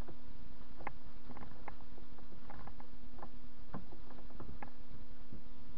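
Scattered light metal clicks and taps from hands handling the tool post of a TV-16 metal lathe while the lathe is stopped, over a steady hum.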